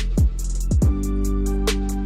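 Background music with a steady beat: deep kick drums that drop in pitch, quick ticking hi-hats and held bass notes.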